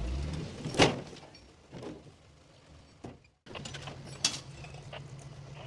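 Heavy earth-moving machinery with sharp metallic clanks and knocks, the loudest about a second in and another about four seconds in. An engine runs low and steady in the background. The sound cuts out briefly a little past three seconds.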